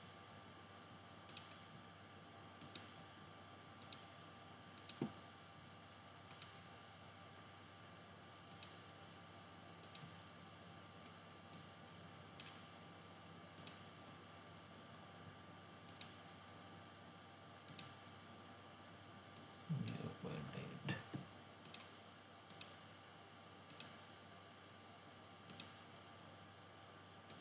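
Computer mouse clicking at an uneven pace, about one click every one to two seconds, over a faint steady hum. A brief low, muffled sound comes about three-quarters of the way through.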